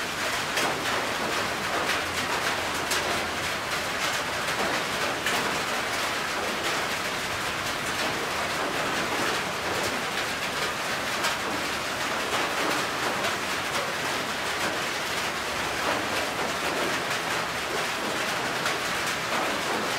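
Steady rain falling on a corrugated metal roof: a dense, even hiss of countless small drop ticks.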